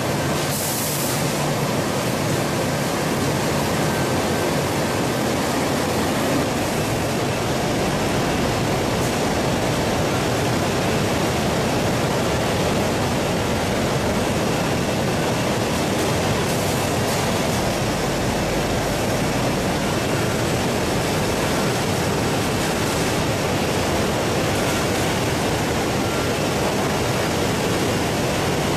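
Steady rushing, churning noise of water and running machinery in a poultry processing line's carcass chiller and conveyors.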